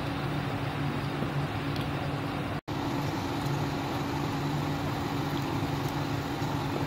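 Steady hum and hiss of an induction cooktop's cooling fan running under the pan, with a constant low drone; it cuts out for an instant about two and a half seconds in.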